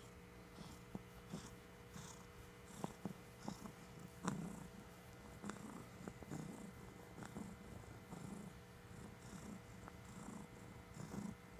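Domestic cat purring softly, pulsing about once a second, with a few sharp clicks, the loudest about four seconds in.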